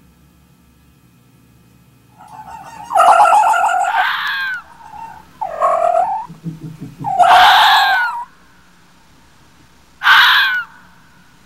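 Red fox giving four high-pitched whining calls, each with sweeps falling in pitch, the first starting about two seconds in.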